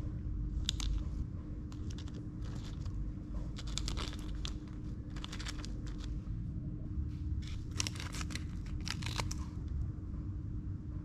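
Small paper and plastic candy-kit packaging crinkling and crackling in short bursts as it is handled, over a steady low hum.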